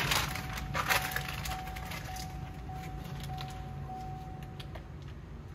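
A faint, steady single-pitch electronic tone inside the open pickup cab. It lasts about four and a half seconds and stops with a click. Clicks and rustling of movement come in the first second.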